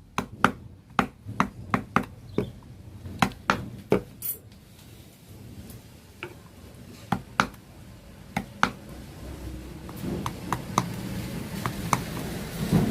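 Hand carving: a carving chisel driven into a wooden board with a series of sharp taps, about two a second at first and then more spaced out, with a low steady rumble growing underneath in the last few seconds.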